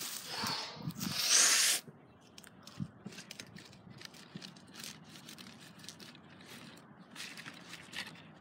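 A white plastic pipe jabbed and scraped into rotten pumpkin and dirt: two loud, rough hissing scrapes in the first two seconds, then faint scattered scraping and rustling.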